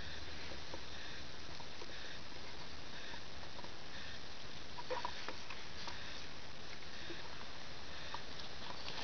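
Steady hiss of rain on wet grass, with a faint distant chorus repeating about once a second behind it. A few short rustles and taps of handled grass come about five seconds in.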